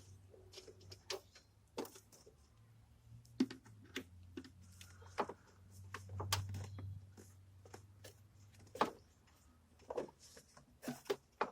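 Irregular light clicks and knocks of hand work on the engine bay as the intake and its fittings are put back on, over a faint low hum that swells briefly about six seconds in.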